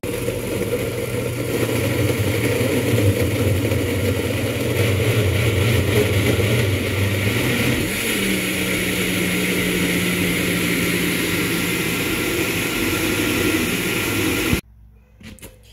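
Farberware countertop blender running steadily at full speed, blending frozen bananas and pineapple chunks into a smoothie. Its note shifts about halfway through, and it stops abruptly near the end.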